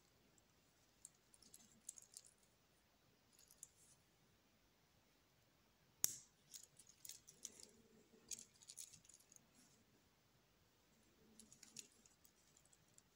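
Metal link bracelet of a 1974 Omega Equinoxe clicking and rattling softly as it is flexed and turned in gloved hands: scattered groups of small clicks, with one sharper click about six seconds in.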